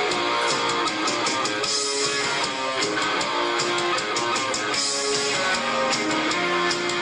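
Live rock band playing: strummed electric guitars over bass and drums, with a steady beat of cymbal and drum hits.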